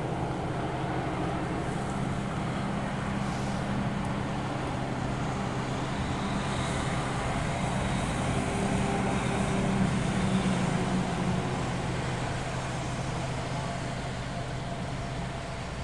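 Steady engine hum of a motor vehicle or locomotive, swelling a little about ten seconds in and easing near the end.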